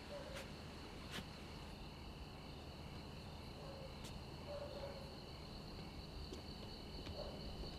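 Crickets chirping in a steady, faint high trill, with a few soft clicks.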